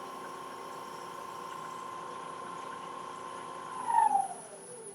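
Wood lathe motor running with a steady high whine, then switched off about four seconds in, its pitch sliding down as the lathe spins down.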